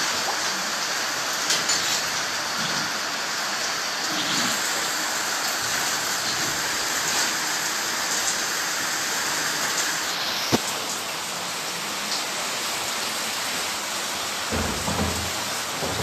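Steady heavy rain falling on and around a corrugated roof, with one sharp knock about ten seconds in.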